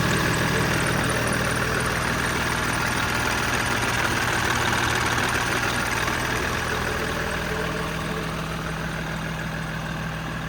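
Cummins 8.3 ISC inline-six diesel idling steadily in a Peterbilt 335 truck. It gets gradually quieter over the second half.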